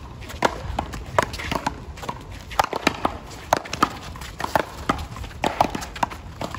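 One-wall paddleball rally: sharp pops of the rubber ball struck by paddles and rebounding off the concrete wall, the loud ones coming about once or twice a second, with quieter knocks between them.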